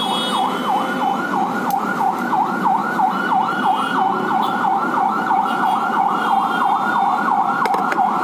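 An electronic siren-like tone warbling rapidly up and down, about four sweeps a second, holding steady without a break, over a steady lower rushing noise.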